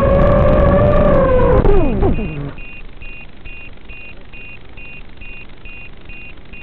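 FPV quadcopter's motors whining at a steady pitch, then falling in pitch and stopping about two seconds in as the quad comes down in the grass. Then a steady run of short, high beeps, about two a second.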